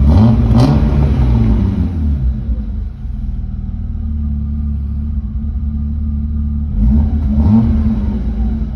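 BMW E36 325's stock M50B25 2.5-litre inline-six, non-VANOS, free-revving. It is blipped twice at the start and falls back to a steady idle within about three seconds. About seven seconds in it revs up again and drops back.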